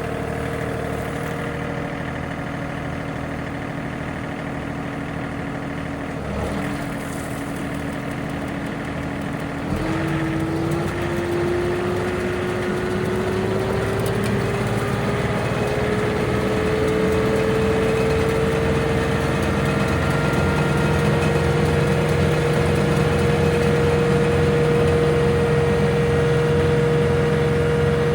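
John Deere 3039R tractor's three-cylinder diesel running at a steady speed, then about ten seconds in it comes up in speed and a tone climbs steadily for several seconds before holding, louder: the PTO-driven stump grinder spinning up to working speed.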